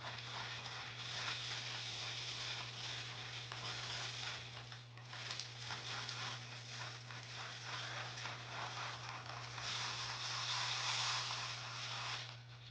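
Wooden bead spinner turning with seed beads in its bowl, the beads making a continuous fine rattle and patter as the needle scoops them up. The rattle stops shortly before the end.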